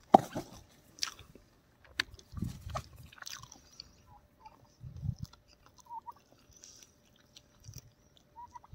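A person chewing a mouthful of fish and roti: soft, wet mouth sounds with scattered small clicks.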